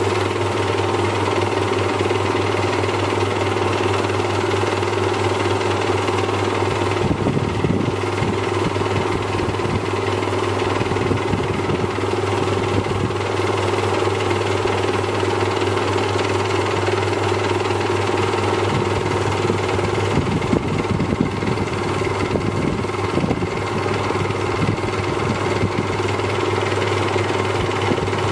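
A pen-turning lathe running with a steady hum while an ebonite pen blank is hand-turned. An irregular rattling chatter comes and goes from about seven seconds in.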